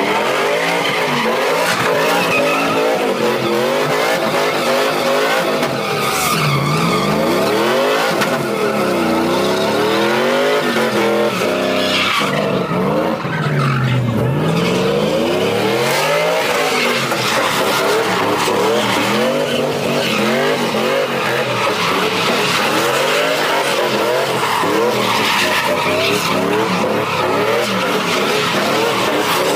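SUV doing a burnout: its engine is held at high revs that dip and climb back again several times, over continuous tyre squeal and skidding.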